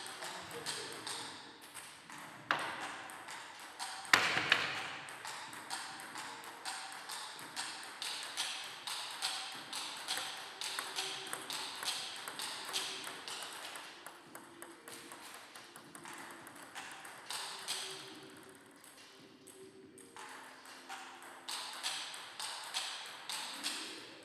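Celluloid-type table tennis balls clicking in a steady run of quick, even hits off bats and table, as in a rally. A louder knock comes about two and a half seconds in and another about four seconds in.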